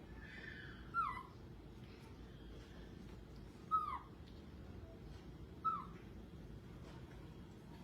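Baby monkey giving three short, high cries that fall in pitch, about two seconds apart, with a fainter cry at the very start, over steady low background noise.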